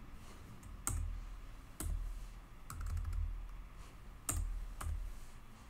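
Computer keyboard keystrokes pressed one at a time, with a second or so between them and a quick little cluster of clicks near the middle, over a faint low hum.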